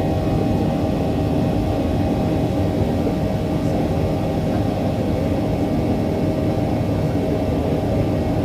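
Steady jet-engine noise inside the cabin of a Boeing 737-800 with CFM56-7B engines: a dense, even rumble with several steady engine tones through it.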